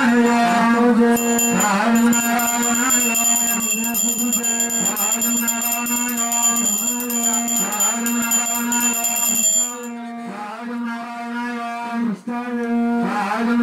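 Devotional chanting sung as a repeating refrain over a steady drone. A thin, high ringing tone runs with it until about ten seconds in; then the music drops back and turns quieter for a couple of seconds before it swells again near the end.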